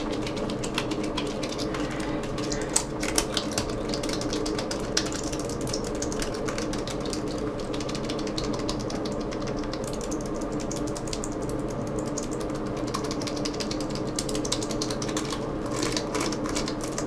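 Rapid, irregular clattering of a Lenovo ThinkPad T61 laptop keyboard's keys being mashed over and over while the loose keyboard is held upside down, working isopropyl alcohol through keys made sticky by spilled Coke. The clicking thins out in the middle and picks up again near the end, over a steady low hum.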